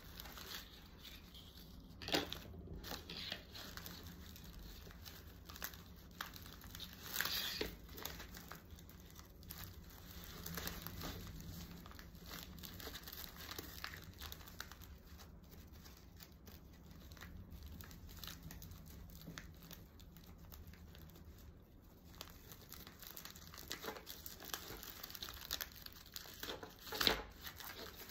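Honeycomb kraft wrapping paper rustling and crinkling as it is wrapped around a small parcel and tied with ribbon, in irregular handling noises with a few louder crackles, the loudest near the end.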